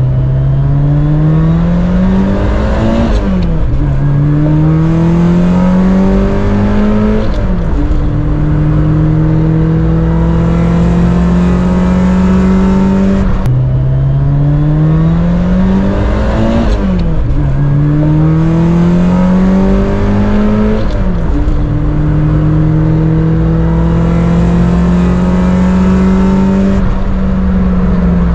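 Toyota AE86's 4A-GE twin-cam four-cylinder breathing through a SACLAM exhaust, heard inside the closed cabin under full-throttle acceleration. The revs climb, drop at an upshift, climb again and drop at a second upshift, then settle into a steady cruise. About halfway through the same run through the gears happens once more.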